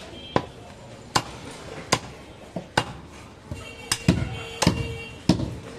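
Butcher's cleaver chopping goat meat on a wooden log chopping block: a steady run of sharp chops, about eight of them, coming closer together in the second half.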